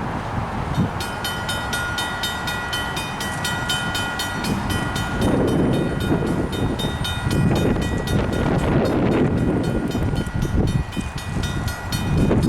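A bell ringing rapidly and steadily, about four strokes a second, starting about a second in and stopping just before the end, over the rumble of a train.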